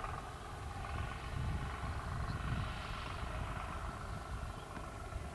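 Four-wheel-drive tractor's diesel engine running steadily as the tractor climbs across a steep grassy slope, a low rumble that rises and falls a little.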